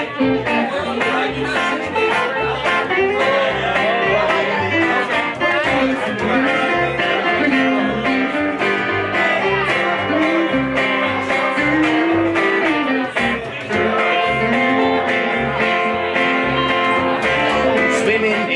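Live band playing an instrumental break between sung verses: guitars over a plucked upright bass keeping a steady beat.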